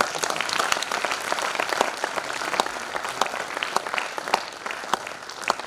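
Audience applauding: many hands clapping in a dense patter that starts at once and thins out near the end.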